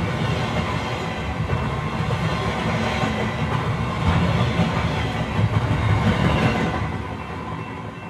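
A train running, heard as a recorded soundtrack: a steady, dense noise strongest in the low end, fading down near the end.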